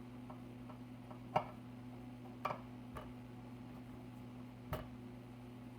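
A few scattered light clicks and knocks as a car amplifier's circuit board is slid and seated into its metal case, the sharpest about a second and a half in, over a steady low electrical hum.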